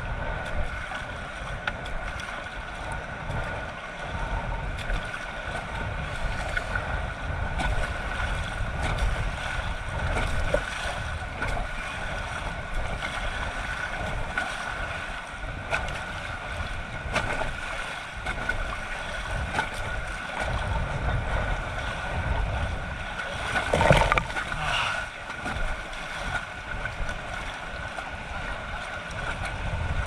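Rushing river water around an inflatable raft on a whitewater run, with wind buffeting the microphone. There is one brief louder burst about three-quarters of the way through.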